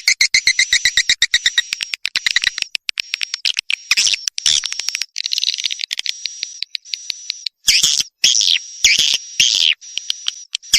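Swiftlet calls, the kind played as a lure for swiftlets: fast trains of clicks mixed with high twittering chirps and held high whistles. Louder bursts of chattering come in short groups with gaps near the end.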